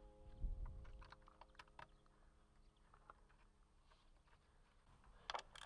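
Faint, scattered small clicks and taps of metal bolts and hand tools being handled, with a dull knock about half a second in and a quick cluster of sharper clicks near the end.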